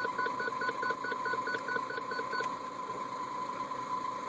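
ZF 5HP30 automatic transmission whining steadily in gear, a constant high whine that comes on in drive or reverse and disappears in neutral, the owner's sign of a gearbox fault. Over the first two and a half seconds a rapid run of about a dozen short beeps sounds on top of it.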